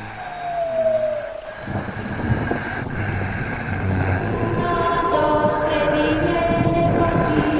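Layered horror sound design: a low drone with a single falling tone at the start, then a rumbling noise with several held tones above it that swells steadily louder.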